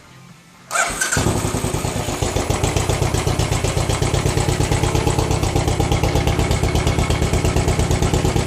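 Royal Enfield Continental GT motorcycle started on its stock exhaust with the standard sports muffler: the engine catches about a second in and settles into a steady, evenly pulsing idle.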